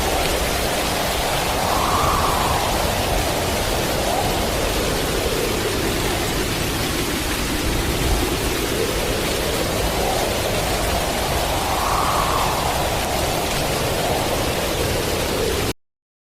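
Hurricane wind and heavy rain: a loud, steady rushing noise with a whistling pitch that slowly rises and falls in gusts, strongest about two seconds in and again about twelve seconds in. It cuts off suddenly near the end.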